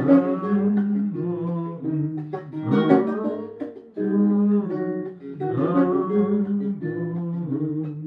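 Acoustic guitar playing the instrumental close of a bard song, with chords struck about every two to three seconds and left to ring.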